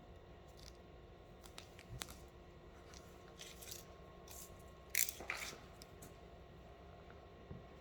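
Vinyl wrap film being handled and worked during a vehicle wrap install: scattered light rustles and clicks, with a short, louder rustling burst about five seconds in.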